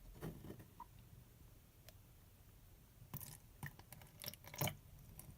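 Faint, scattered clicks and squishy handling noises from a plastic glue bottle being handled while water is put into it.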